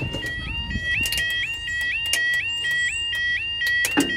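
Railway level crossing's electronic yelp alarm: a two-tone warble that sweeps up and drops back about three times a second. A sharp knock comes about four seconds in.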